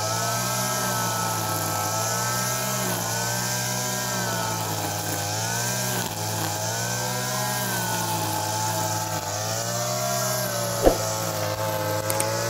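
Backpack two-stroke petrol brush cutter running at high speed while cutting dry grass. Its pitch dips and recovers every two seconds or so as the cutting head sweeps through the grass. A single sharp click near the end.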